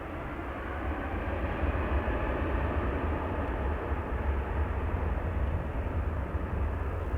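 Jet aircraft engines, swelling over the first second or two and then holding steady, with a heavy low rumble of wind on the microphone.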